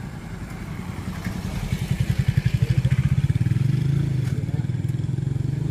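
Small motorcycle engine passing close by on a steel bridge deck. Its fast pulsing beat swells to its loudest about two to three seconds in, then settles into a steady low drone.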